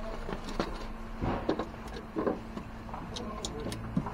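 Plastic packaging sheets rustling and crinkling, with light clicks and knocks against the refrigerator's plastic interior liner, as packing material is pulled out of a new fridge. A faint steady hum runs underneath.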